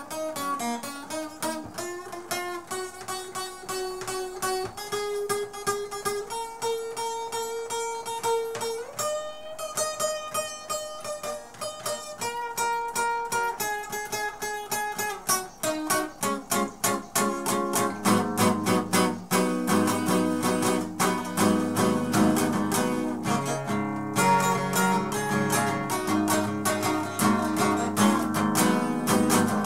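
Solo acoustic guitar: a picked single-note melody that climbs step by step, then, a little past halfway, louder full-chord strumming.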